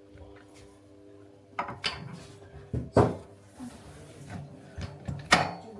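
A few sharp knocks and clunks of hard parts being handled and fitted onto a generator's frame, the loudest about three seconds in.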